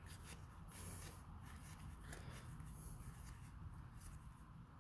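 Faint rustling and soft flicks of trading cards being slid one by one from the front of a booster-pack stack to the back.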